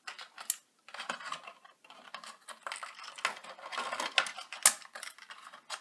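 Irregular small clicks, snips and crackles of packaging being handled: ties holding a nano quadcopter in its plastic tray being cut and pulled free.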